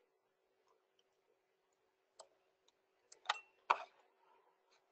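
A handful of short, sharp computer mouse clicks, the loudest a pair about three and a half seconds in, over a faint steady hum.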